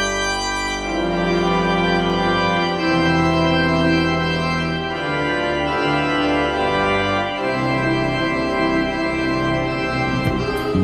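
Church organ played slowly: full held chords over deep sustained bass notes, the harmony changing every second or two.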